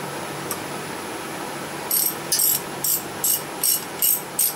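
Hand socket ratchet clicking in short, even bursts, about two to three a second, from about halfway through, as its handle is swung back and forth snugging down intake manifold bolts.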